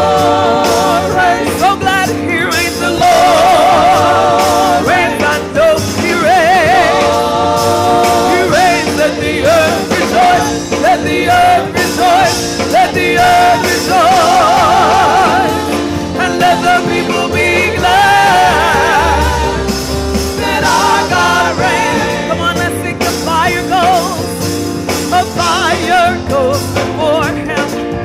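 A woman singing a gospel worship song with strong vibrato, accompanied by a Roland Juno-DS keyboard.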